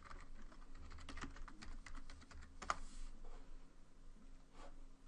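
Typing on a computer keyboard: a quick run of keystrokes over the first three seconds, then a few scattered clicks.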